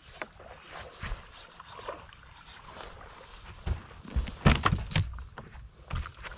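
A bass swung aboard lands on a boat's deck with a cluster of heavy thumps and flopping about four and a half seconds in. Before that there are softer scattered knocks and rustles.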